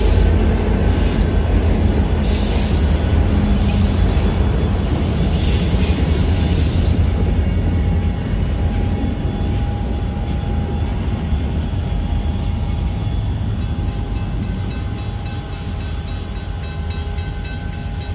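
Indiana Rail Road freight train passing close by: locomotive and freight cars rumbling with wheel rattle, slowly fading as the train pulls away. A steady tone comes through in the second half.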